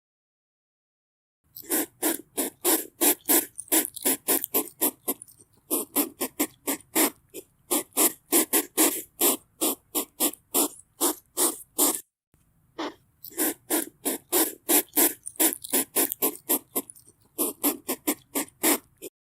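A hedgehog puffing in a fast, even rhythm, about three to four short puffs a second, with a brief break about halfway through.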